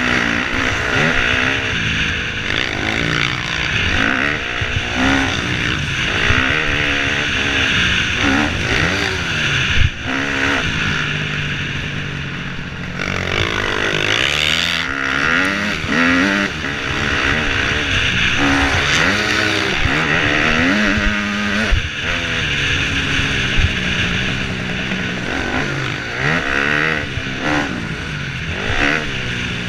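A KTM 250 dirt bike's engine revving hard and dropping back again and again through the gears as it is ridden around a motocross track, heard from the rider's helmet camera with a steady wind rush. A sharp knock comes about ten seconds in.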